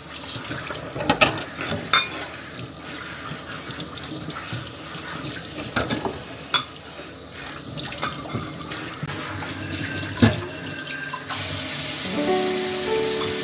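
Water running from a tap into a sink, with a few sharp clinks and knocks over it. Music comes in near the end.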